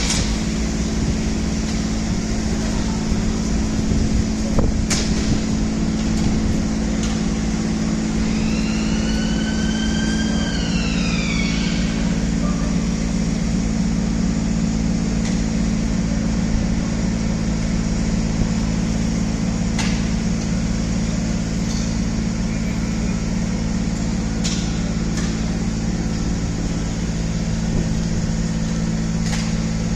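Construction cradle hoist running with a steady low motor hum, with a few sharp clicks scattered through and, about a third of the way in, a brief pitched tone that rises and then falls.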